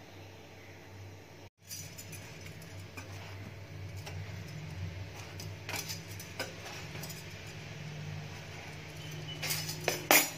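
Metal cookware clinking and clattering: a few light clicks about six seconds in, then a run of loud sharp clanks near the end as a tawa is handled against steel plates. A steady low hum from the kitchen runs underneath.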